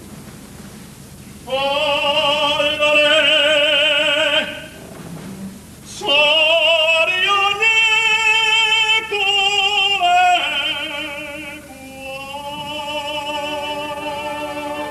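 A male opera singer sings two phrases with strong vibrato and long held notes, with orchestral accompaniment. The voice comes in about a second and a half in, breaks off briefly, and stops shortly before the end, leaving the orchestra holding sustained notes.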